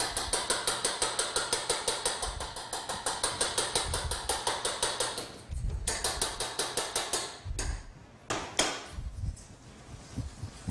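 A fork beating eggs in a well of flour, clicking rapidly and evenly as it strikes the work surface. The beating breaks off briefly just after the middle and resumes, then gives way to a few scattered knocks near the end.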